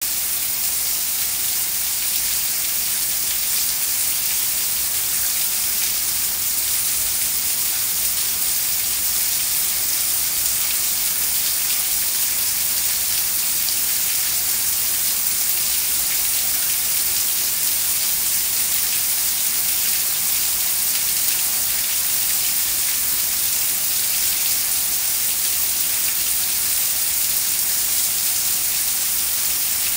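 Heavy rain falling steadily on a concrete driveway, lawn and tree leaves: a dense, even hiss that holds constant.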